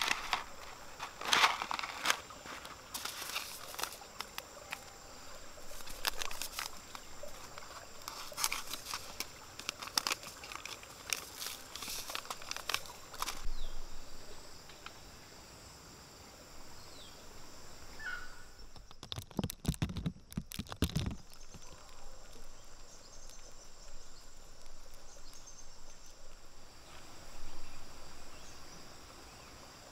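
Paper seed packets crinkling and rustling in irregular bursts as they are handled, through the first half. Then a steady high insect drone, broken by a couple of seconds of low thudding about two-thirds of the way in.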